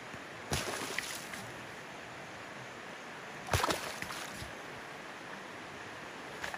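Shallow river water running steadily, with two brief splashes: one about half a second in, a louder one about three and a half seconds in.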